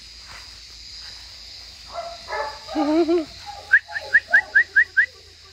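Doberman puppies whining and yipping, eager for their food. About two seconds in come wavering whines, followed by a quick run of six short, high, rising yips, about four a second.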